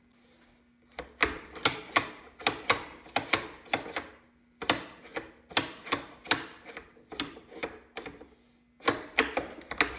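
Bolt of a Savage 93R17 .17 HMR bolt-action rifle being cycled open and closed by hand, a series of sharp metallic clicks and clacks in three quick runs. The action is freshly lubricated, and the owner still finds it a little metallic-sounding.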